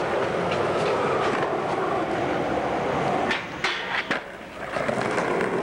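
Skateboard wheels rolling on pavement, with a few sharp clacks of the board in the middle.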